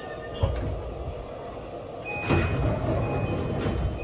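Cabin of a JR Kyushu BEC819 series battery-electric train coming to a stop at a station while braking: a steady rumble with a sharp knock about half a second in, then a louder rush of noise with a high steady tone from about two seconds in.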